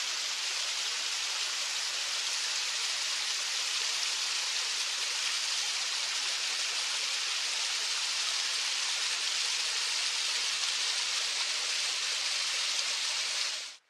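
Mountain stream running over rocks in small cascades, a steady rushing hiss of water that cuts off suddenly near the end.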